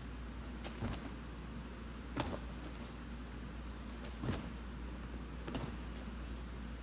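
Four soft thuds of bare feet and hands landing on foam floor mats, the loudest a little after four seconds in, over a steady low hum.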